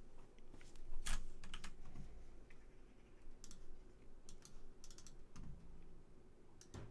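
Scattered light clicks of a computer mouse and keyboard at a desk, coming singly and in short clusters, with a quick run of several clicks about five seconds in.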